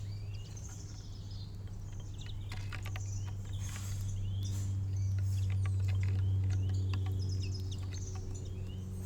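Small songbirds chirping and twittering at a garden feeder, with scattered sharp clicks. Under them runs a steady low hum that grows louder in the middle and then eases off.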